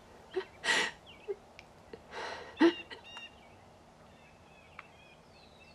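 A woman sobbing: two sharp, shaky crying breaths, about half a second in and again around two and a half seconds, the second the loudest. Faint bird chirps follow.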